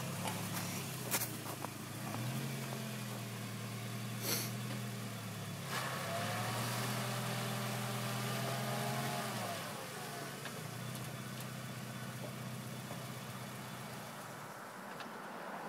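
Vehicle engine running under the load of a chain tow, one car pulling another out of snow: a steady hum that revs up a few seconds in, holds higher with a whine on top for about three seconds, then drops back to a lower, steadier note. A couple of sharp clicks come in the first few seconds.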